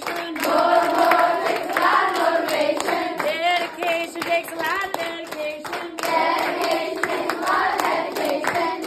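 A group of children singing together while clapping their hands.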